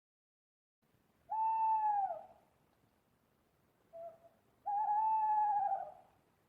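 Owl hooting: a long hoot that drops at its end, a short note, then a second longer hoot.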